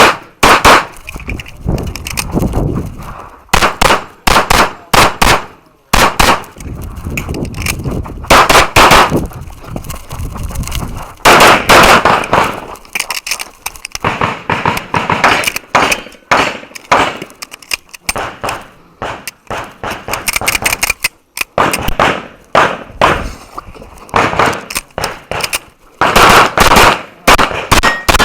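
Pistol fired in fast strings of shots during a timed practical shooting stage, with short gaps between strings.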